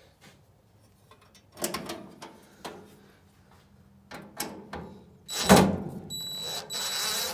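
Knocks and metallic clatter as the sheet-metal auger motor cover and its screw are handled, the loudest a sharp knock about five seconds in. A cordless impact driver then runs a screw into the cover with a high whine for about a second, with a short break.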